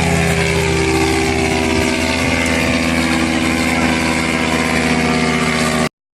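Paramotor engine and propeller running at a steady, constant throttle. The sound cuts off suddenly near the end.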